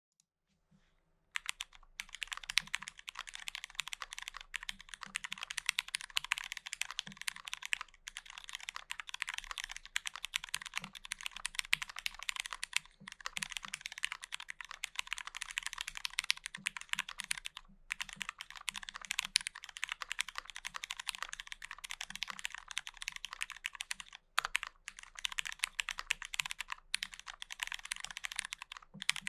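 Continuous fast typing on a Bitmap Studios Alpine65 65% custom mechanical keyboard with an aluminum plate, Cherry MX Brown switches lubed with Tribosys 3204 and filmed, and GMK keycaps: a dense run of rapid key clacks. It starts about a second in and breaks off briefly a few times.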